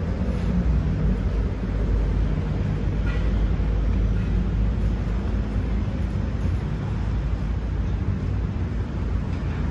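Strong wind buffeting the microphone: a steady, churning low rumble with a hiss over it.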